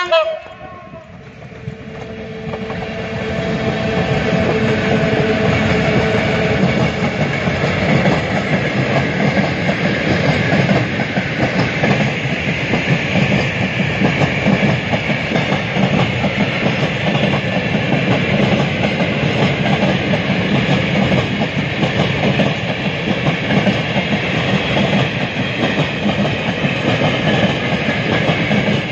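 PKP ET41 twin-section electric locomotive and its long train of open freight wagons passing close by. The end of a horn blast at the very start, then a rumble of wheels on rail that builds over the first few seconds and settles into a steady clatter of wagons rolling by.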